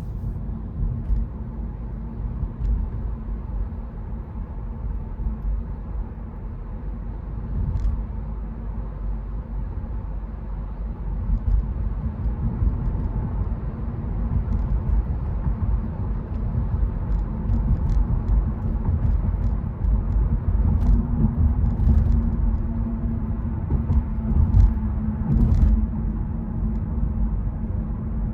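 Car driving on a rain-wet road: a steady low road rumble, growing a little louder in the second half, with a few faint scattered ticks.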